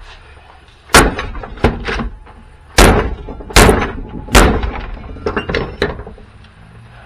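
A series of sharp knocks and clatters from parts of a battery jump pack being handled during its dismantling: about five loud strikes in the first four and a half seconds, then a few lighter ones.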